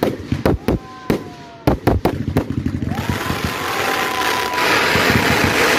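Fireworks display: a rapid string of sharp bangs as shells burst overhead, then, about three seconds in, a loud sustained crackling hiss from a shower of sparks.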